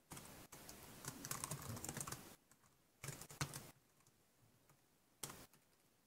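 Computer keyboard typing: a quick run of keystrokes for about two seconds, a shorter run about three seconds in, and one brief burst of keys near the end.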